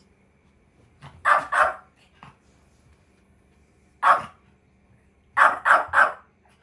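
Long-coat Chihuahua barking sharply: two barks about a second in, one more around four seconds, then three in quick succession near the end. These are angry demand barks, calling a family member back down to it.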